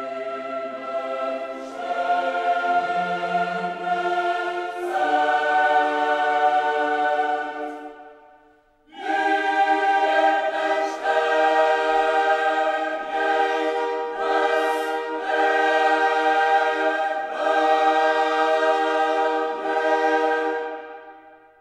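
Choral music: a choir singing long held chords. It fades almost to nothing about eight seconds in, comes back a second later, and fades out at the end.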